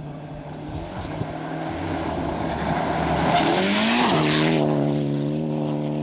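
Rally car passing at speed: the sound builds to a peak around four seconds in, with tyre noise and the engine revs climbing then dropping back as it shifts gear, after which the engine holds a steady note.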